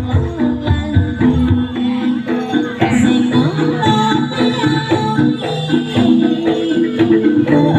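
Jaranan accompaniment music: a Javanese gamelan-style ensemble of struck gongs, metallophones and drums playing a busy, steady rhythm of many quick pitched notes.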